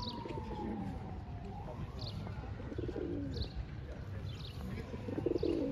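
Pigeons cooing twice, the louder coo near the end, with short high chirps of small birds recurring about once a second over a steady low rumble of town noise.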